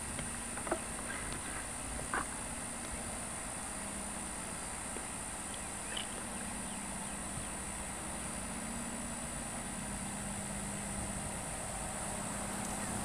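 Quiet background of steady faint hiss with a low hum, broken by a few soft ticks near the start and once about six seconds in.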